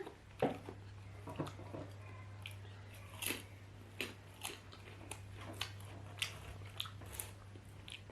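Close-miked eating: soft chewing and mouth smacks on potatoes, about a dozen short clicky bites and smacks spread through, over a steady low electrical hum.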